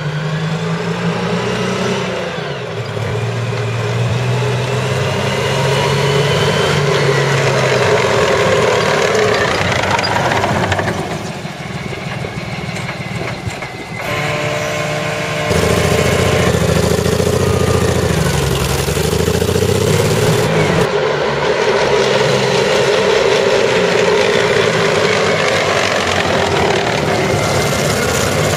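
Jaguar J60 straight-six petrol engine of a CVR(T) Striker armoured vehicle running and being revved, its speed rising and falling several times, quieter for a few seconds mid-way and then louder again. It is misfiring badly, caused by a stuck valve.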